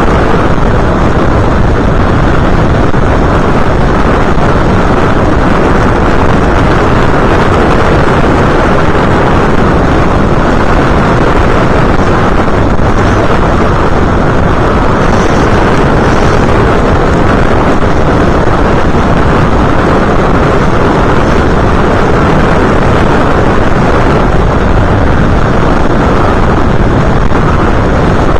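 Steady, loud rush of wind buffeting the onboard camera's microphone of an FPV aircraft in flight, mixed with its motor and propeller noise, with no clear pitch.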